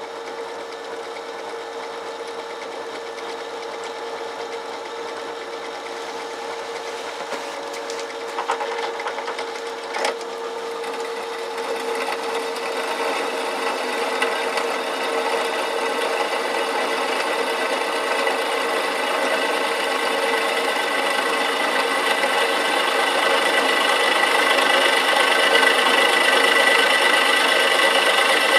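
Drill press driven by a 380 V three-phase induction motor wired in star on 220 V, its 13 mm twist drill cutting into steel under hard feed pressure. The motor's steady hum is joined by a cutting noise that builds steadily louder as the bit bites in, with two short clicks about eight and ten seconds in.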